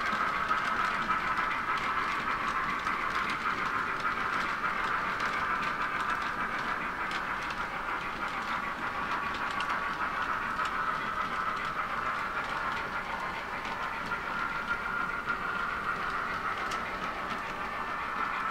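H0-scale model goods wagons rolling along the track in a long train, a steady rolling noise with a few faint clicks.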